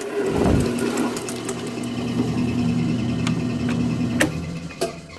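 Jet 22-inch floor drill press running with an annular cutter, the spindle humming steadily as the cutter turns free after cutting through steel plate and is raised from the hole. There are a few sharp clicks near the end, and the sound fades away at the end.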